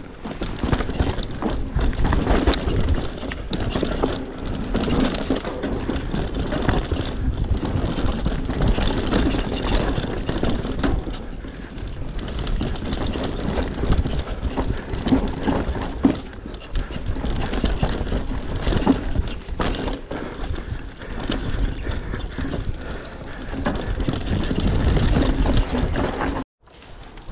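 Mondraker Superfoxy enduro mountain bike descending a rough dirt trail: dense rattling and clatter from tyres, chain and suspension over roots and bumps, with a steady low rumble. The sound cuts off suddenly near the end.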